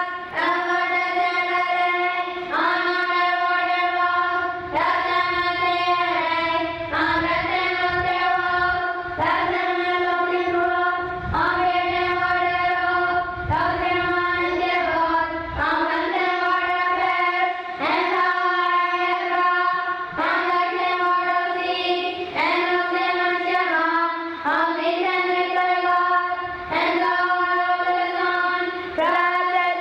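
A group of schoolchildren singing a slow song in unison, each note held for about two seconds.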